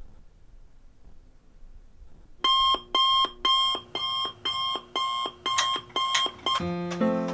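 Electronic bedside alarm clock beeping, short even beeps about two a second, starting a couple of seconds in after quiet room tone and stopping suddenly near the end. Soft keyboard music comes in as the beeping stops.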